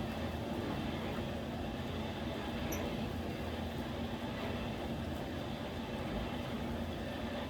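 Steady hum and rushing noise of a running forge, with no hammer blows.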